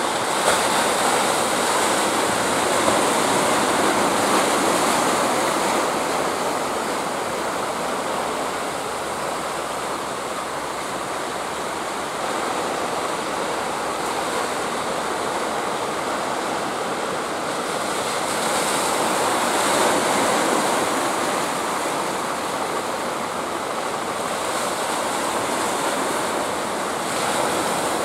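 Ocean surf: waves breaking and washing in a steady rushing hiss that swells louder twice in the second half.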